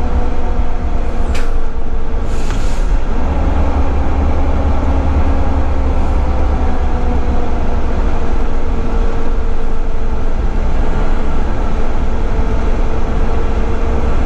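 Cab interior of a Volvo FH12 480 low-loader truck under way, its 12-litre straight-six diesel running with a steady drone over a deep rumble; the engine note sags slightly and then climbs again. Two brief hisses come about one and a half and two and a half seconds in.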